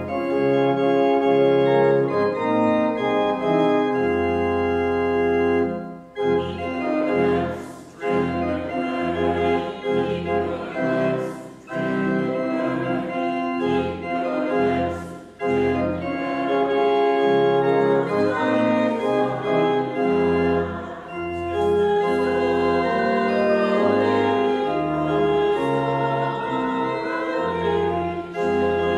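Church organ playing slow, sustained chords of a hymn-tune piece, with brief breaks between phrases.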